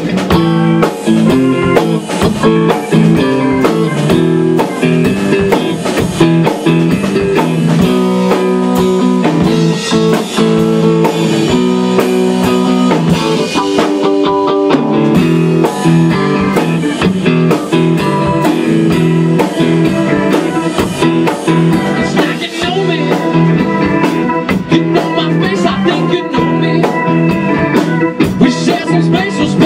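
A live band playing together: electric guitar, keyboard and drum kit, with a steady beat.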